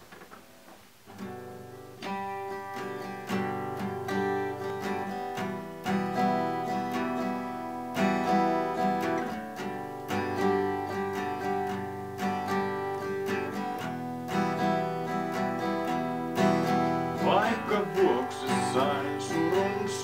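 Yamaha steel-string acoustic guitar playing a slow song intro, strummed chords that start a second or two in after a near-silent opening. A man's voice begins singing over the guitar near the end.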